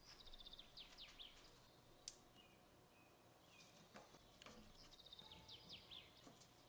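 Faint bird song: a short phrase of quick high chirps, heard twice, once at the start and again near the end. There is a single sharp click about two seconds in, over a faint low hum.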